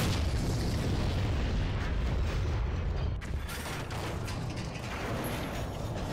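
Battle sound effects from an animation of giant robots fighting: a heavy low rumble of crashing and explosions, with a few sharp bangs, easing slightly toward the end.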